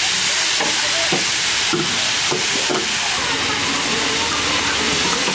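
Hot oil sizzling steadily in a large steel cooking pan as onion paste, then garlic and green chili paste, are tipped in to fry.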